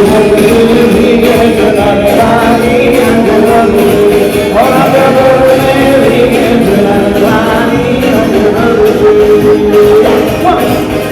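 A song with a singing voice holding long notes over instrumental accompaniment.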